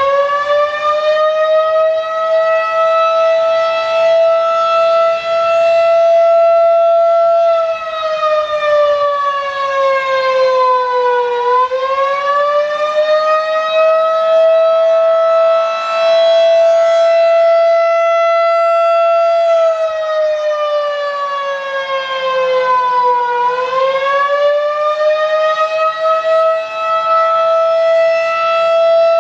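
Federal Signal 2001-DC warning siren sounding loudly during a test. Its tone holds steady, then sinks in pitch and climbs back up, twice, about twelve seconds apart.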